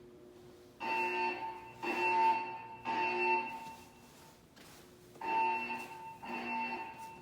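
Siemens MXL-V fire alarm system sounding its temporal-three evacuation tone through the building's voice-evacuation speakers: three beeps about a second apart, a pause, then the next group of three begins about five seconds in.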